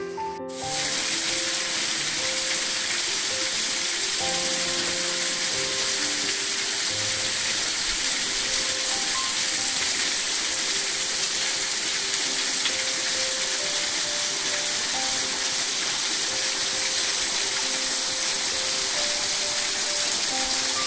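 Small waterfall spilling over rock ledges into a creek: a steady rushing hiss of falling water that starts abruptly about half a second in, with quiet background music underneath.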